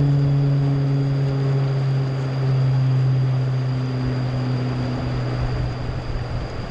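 An engine running steadily nearby: a continuous low hum with a few overtones above it that thin out after about five seconds.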